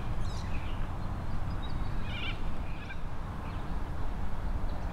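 Wind buffeting the microphone as a steady low rumble, with a few short bird chirps about two seconds in and again near the end.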